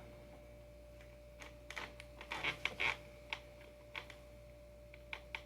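A scattered run of small clicks and clinks from skateboard bolts and hardware being handled and set down, densest about two to three seconds in.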